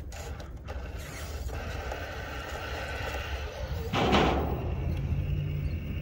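Cross RC Demon SU4C rock crawler's brushless motor and geared transmission whining as it crawls slowly over rock. A brief, louder burst of noise comes about four seconds in.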